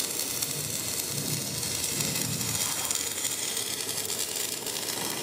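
Stick (manual metal arc) welding on steel square tubing: the arc crackles and sizzles steadily as the welding rod burns down along the joint.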